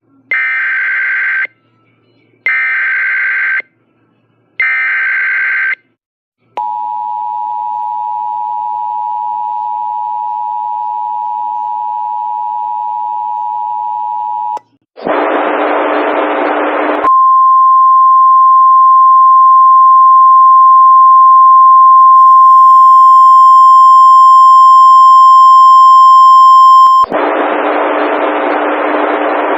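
Emergency Alert System activation for a child abduction alert. Three short bursts of the screeching SAME header data tones come first, then the two-tone attention signal for about eight seconds. After a couple of seconds of hissing noise, a single steady 1050 Hz alert tone runs for about ten seconds, and hissing noise returns near the end.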